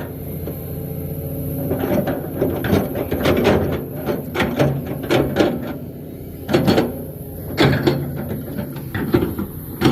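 Excavator engine running steadily under many irregular clanks and knocks from the machine at work.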